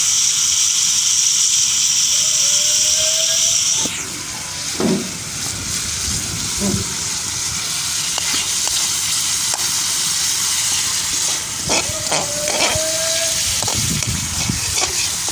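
Potato slices sizzling in hot oil in a wok-style pan over a wood fire. The sizzle is strongest for about the first four seconds, then drops, and a spatula scrapes and knocks against the pan a few times as the slices are stirred.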